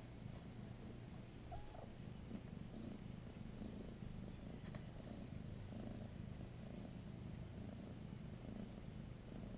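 Tabby mother cat purring with a steady, even low rumble as she lies with her newborn kittens while in labour.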